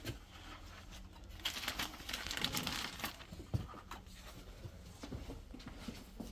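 Irregular rustling and scraping with a few light knocks, the noises of someone moving about and handling a metal strap and bracket, over a steady low hum.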